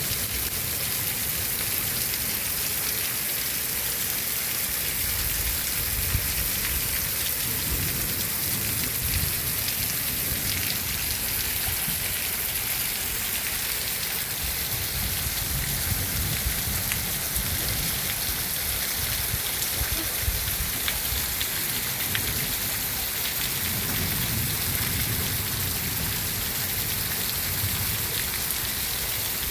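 Heavy rain falling steadily: an even hiss with scattered drops ticking, and an irregular low rumble underneath.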